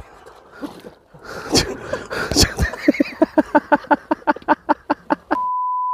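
A quick run of short pitched pulses, about five a second and speeding up, then a steady high beep just under a second long, set in dead silence: an edited-in bleep tone.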